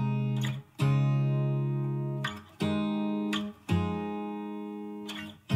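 Background music: an acoustic guitar strumming sustained chords, each struck, left to ring and then cut off, with a new chord about every one to two seconds.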